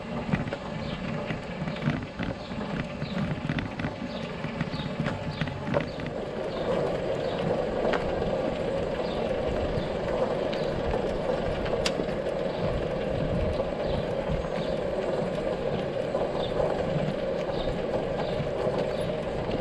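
A Craftsman LT2000 lawn tractor rolling along asphalt as it is pushed by hand, its tyres and chassis making a steady rolling rumble and rattle, with footsteps. Irregular knocks and creaks for the first few seconds, with the steady rolling noise setting in about six seconds in.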